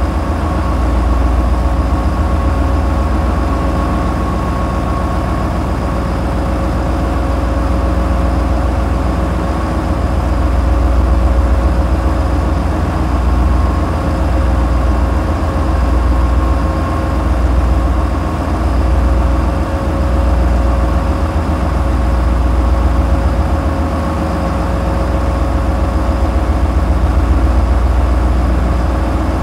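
Tugboat's 450-horsepower engines running at a constant speed, a steady deep throb with a slow rise and fall in loudness and a steady hum above it.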